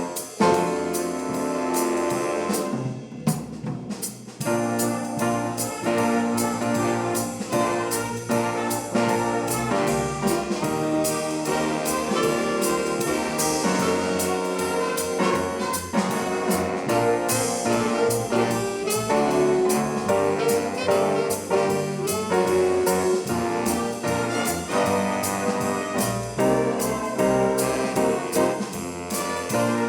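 High school swing band playing a jazz number, with trumpets, trombones and saxophones over a steady beat.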